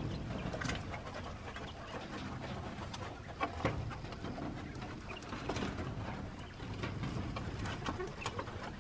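Doves cooing, with scattered short taps and rustles.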